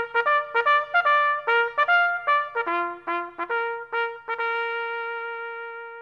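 Brass fanfare jingle: a quick run of short bright notes, about four or five a second, ending on one long held note that fades away.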